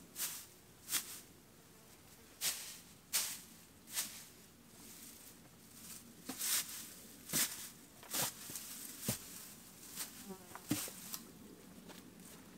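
Irregular rustling swishes, about one every second, as handfuls of mulch are spread around tomato plants. An insect buzzes briefly near the end.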